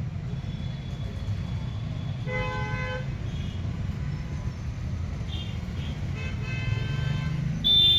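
Street traffic: a steady low engine rumble with vehicle horns honking, a short horn blast about two seconds in and a louder, high-pitched one starting near the end.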